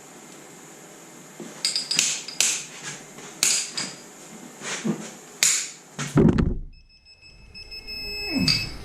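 Metal clinks and knocks of a wrench and socket working a cylinder head bolt as it is torqued down, several sharp ringing taps in a row, followed by a heavier thump about six seconds in.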